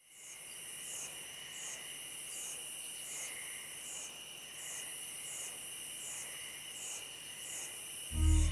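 Insects chirring in a steady night chorus, with a high pulsing trill repeating a little more than once a second over a constant shrill tone. Near the end a loud, deep boom cuts in.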